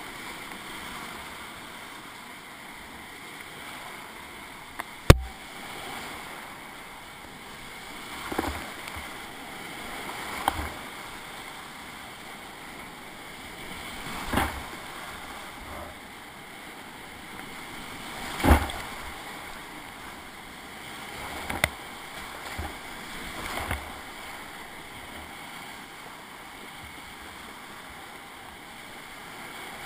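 Whitewater rapids rushing steadily around a kayak, broken by sudden splashes and knocks of water and paddle against the boat and camera: a sharp knock about five seconds in, and several heavier splashing thuds, the loudest about eighteen seconds in.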